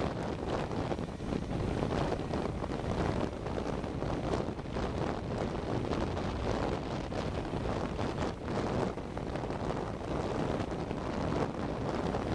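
Wind buffeting the microphone of a camera on a moving 2012 Suzuki V-Strom 650, a steady rumble that covers the bike's V-twin engine running underneath as it rides a dirt trail.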